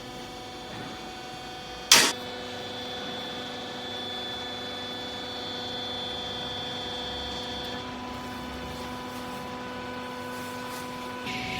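Hydraulic clothing baler's power unit, an electric motor and pump, humming steadily. There is one sharp clack about two seconds in.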